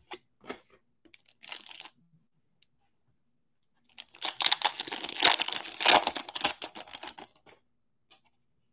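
Wrapper of a Donruss football card pack being torn open by hand: a long crackly tear lasting about three and a half seconds, from about four seconds in. It follows a few light clicks and a short crinkle as the pack is handled.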